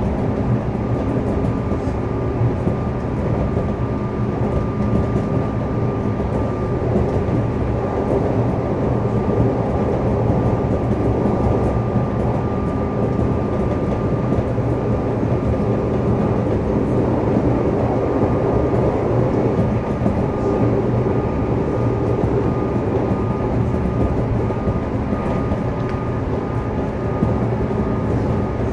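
JR East 211 series electric multiple unit heard from inside the car, running steadily between stations: an even rumble of wheels on rail and running gear, with a thin steady whine above it.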